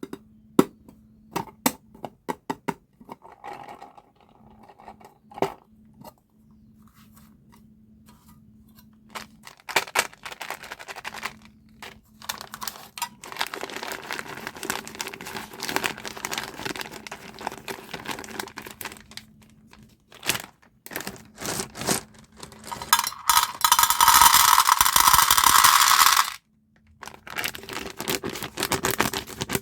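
Plastic candy packaging crinkling and tearing as it is opened and handled, with scattered sharp clicks of small hard-shelled candies. A loud steady rustle lasts about three seconds near the end.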